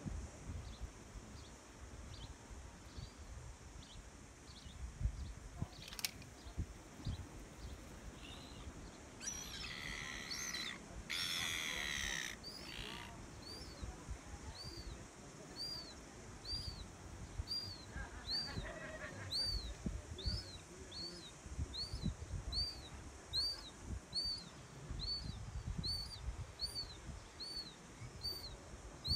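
Gulls calling in a cluster of calls lasting about three seconds, a third of the way in, over a low steady wind rumble. A small bird repeats a short rising-and-falling chirp about twice a second, clearer in the second half.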